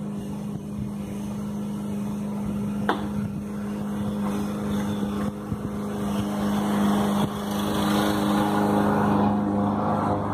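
An engine running steadily, a low pitched hum that grows gradually louder, with a few sharp clicks, the loudest about three seconds in.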